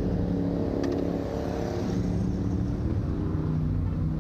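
Engines of stopped cars and motorcycles running steadily in road traffic, with a brief click about a second in.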